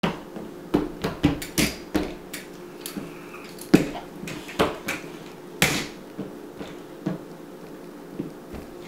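A lightweight toy doll stroller of plastic and thin metal tubing clattering against a hardwood floor as it is picked up off its side and set upright on its wheels. About a dozen sharp knocks and clacks come over the first six seconds, the loudest near four and near six seconds in, then it goes quiet.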